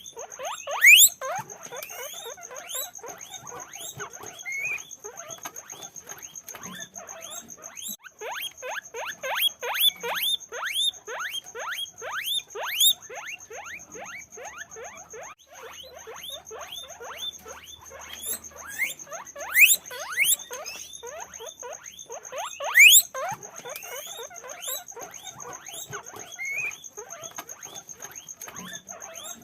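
Many guinea pigs squeaking at once: a dense run of short, rising, overlapping squeals, several a second, with a few louder ones standing out.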